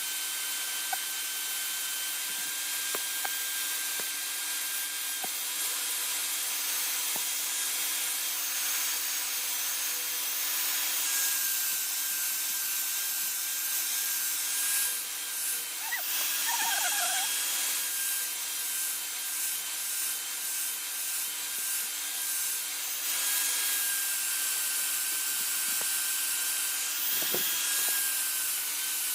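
An electric power tool running steadily with a constant motor hum, grinding or sanding against the work with an even abrasive hiss. A brief high chirp comes about halfway through.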